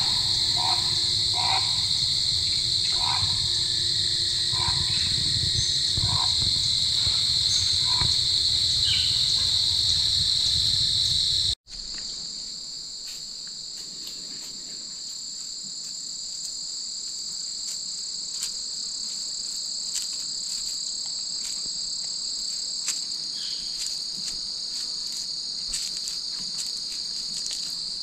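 Chorus of crickets and other insects, a steady high-pitched trill, with a low rumble underneath for the first part. The sound drops out abruptly about twelve seconds in and resumes with the insect chorus a little quieter and the rumble gone.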